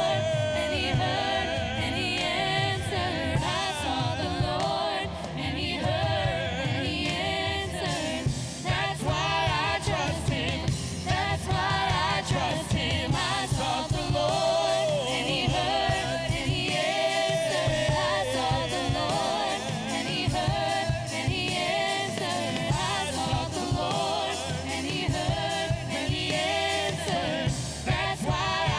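Worship music: a church band playing with a steady beat while singers and the congregation sing.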